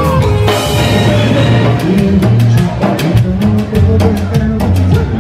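Live band music: a drum kit keeps a steady beat over a bass line, with a cymbal crash about half a second in.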